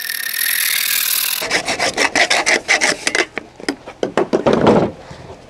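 Hacksaw cutting through a white plastic pipe: a steady rasp for about the first second and a half, then quick back-and-forth strokes that stop near the end as the cut finishes.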